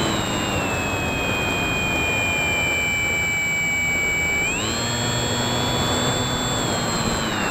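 Bixler 2's brushless electric motor and pusher propeller whining over a steady rush of wind, heard from on board the plane. The whine sinks slowly in pitch, jumps up about four and a half seconds in as the throttle opens, and falls again near the end.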